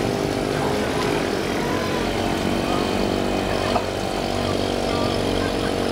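Small engine of a motorised inflatable bumper boat running steadily at an even pitch.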